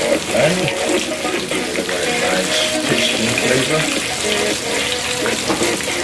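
Whole red snapper shallow-frying in hot oil in a cast-iron skillet: a steady crackling sizzle, with a melodic pitched background sound underneath.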